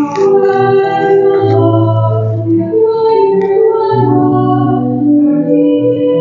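Church organ with sustained chords and bass notes, accompanying a singer in a slow hymn-like melody: the sung Gospel acclamation before the Gospel reading.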